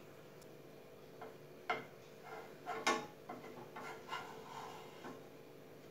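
Wooden spatula tapping and scraping against a non-stick frying pan as it works under a dorayaki pancake to check its underside. A few light knocks and short scrapes, starting about a second in.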